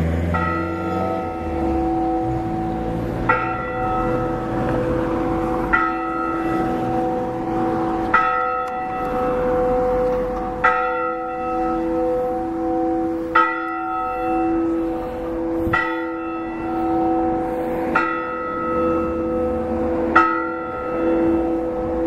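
Church bells ringing from an Orthodox church tower. A higher bell is struck about every two and a half seconds, nine times in all, over the steady hum of deeper bells.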